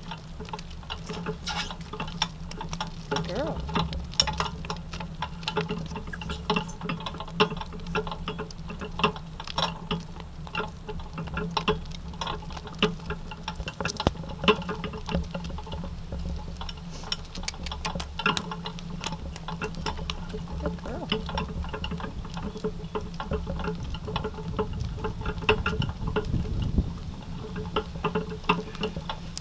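Harnessed donkey's hooves clopping steadily on asphalt at a walk as it pulls a driving cart, a continuous run of sharp clicks over a steady low hum.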